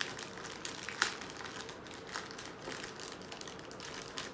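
Thin clear plastic bag crinkling as hands open it and handle the small figure piece inside, with one sharper crackle about a second in.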